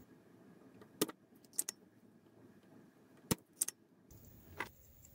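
Spring-loaded desoldering pump (solder sucker) being cocked and fired to suck solder out of a circuit board's fuse holes: about five short, sharp clicks and snaps, the loudest about a second in and just past three seconds.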